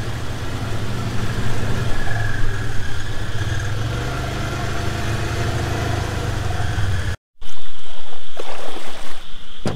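Polaris side-by-side's engine running steadily while driving, heard from inside its cab. About seven seconds in it cuts off abruptly and a louder, steady rushing noise follows.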